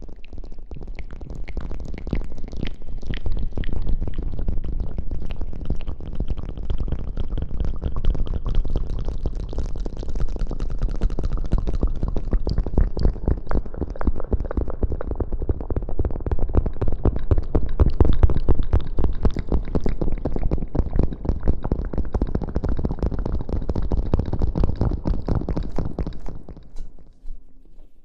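ASMR rustling close on a microphone: fingers rub and squeeze a small block against the mic's tip. It makes a dense, fast crackling with a heavy low rumble, which fades out about a second before the end.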